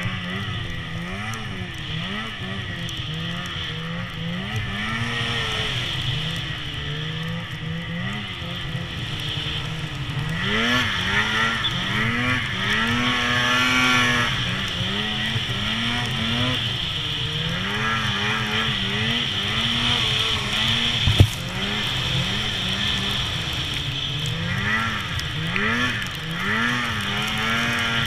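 Polaris PRO RMK 800 two-stroke snowmobile engine, revved up and eased off over and over as the sled ploughs through deep powder snow. A single sharp knock about two-thirds of the way through.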